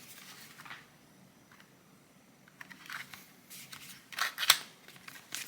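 Rustling and clicking of a craft advent calendar package being opened by hand, with a sharp snap about four and a half seconds in.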